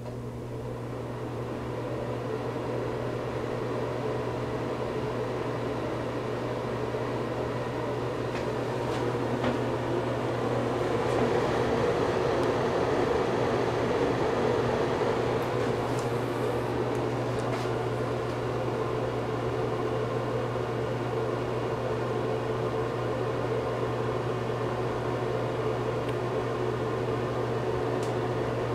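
Air King ceiling exhaust fan running: a steady motor hum under a rush of air, growing louder over the first few seconds.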